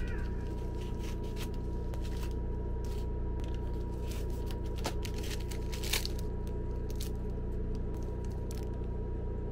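Rustling and crinkling of plastic mailer packaging and small plastic bags being handled and cut open with scissors, in short scattered clicks and snips. Under it runs a steady low hum with a faint high whine.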